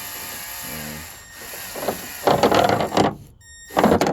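Cordless drill spinning a ratchet strap around two nails in its chuck, its motor running steadily and then winding down and stopping about a second in. Two loud bursts of handling noise follow, a longer one and then a short one near the end.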